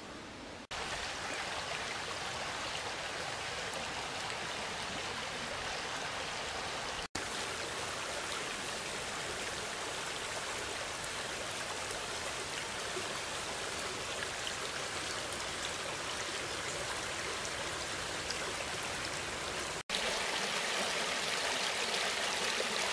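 Small, shallow brook running over stones: a steady sound of flowing water, louder near the end.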